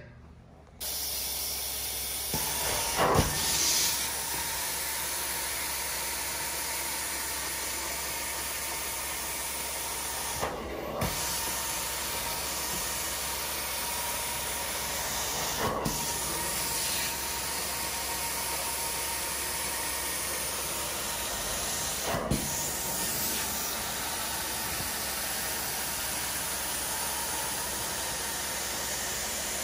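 Hot-water carpet extraction wand being pushed and pulled over carpet: a steady hiss of spray and vacuum suction with a thin high whine. It starts about a second in and has a few brief bumps and breaks along the way.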